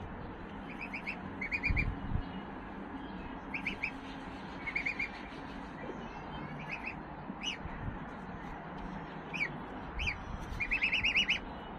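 Small birds chirping: short runs of three or four quick high notes, repeated every second or two, with a longer, faster run near the end, over a steady background noise and a couple of low thumps.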